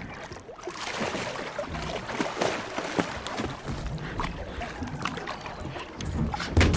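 Water splashing as a hooked blue shark thrashes against the side of the boat. Near the end comes a loud, heavy thump as the shark is hauled over the side into the boat.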